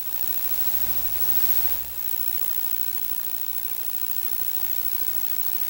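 Natural gas compressor station running: a steady mechanical hiss and drone, with a low rumble swelling for the first two seconds or so.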